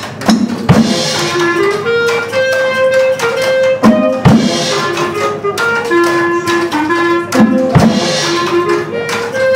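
A small band playing: a short wind-instrument melody, repeated about every three and a half seconds, over a drum kit beat, with a heavy drum stroke and cymbal at the start of each phrase.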